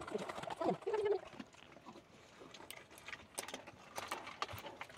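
A dog whining briefly in the first second, short sliding cries and a held note, then scattered light clicks and taps.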